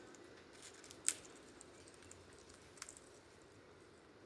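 Quiet room tone with a few faint, short, sharp clicks, the clearest about a second in and another near three seconds in.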